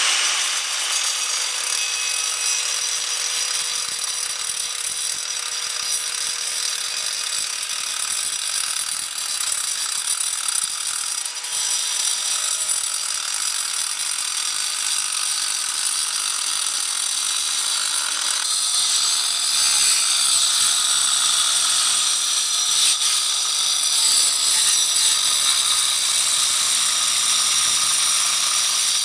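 Angle grinder cutting through a concrete paving flag: a continuous high-pitched grinding over the motor's steady whine, getting louder about two-thirds of the way in as the disc bites deeper.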